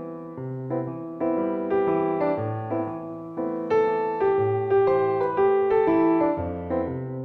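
Background piano music: chords over a slow bass line, notes struck one after another and left to ring.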